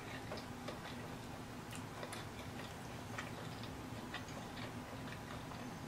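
Faint close-miked chewing of a soft taco: soft, wet mouth clicks at uneven intervals over a faint steady hum.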